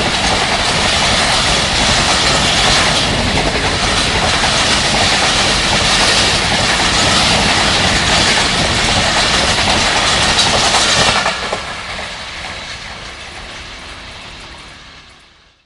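Pakistan Railways passenger train passing, its wheels clattering over the rail joints. The noise stays loud, drops sharply about eleven seconds in, then fades away to nothing as the train moves off.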